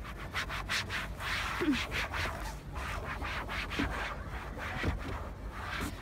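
Repeated short rubbing and scraping strokes against a car door's inner panel as sound-deadening material is pressed and smoothed on by hand.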